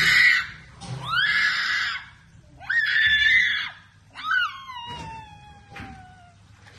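Four loud, high-pitched cries about a second apart, the last drawn out and sliding down in pitch for about two seconds.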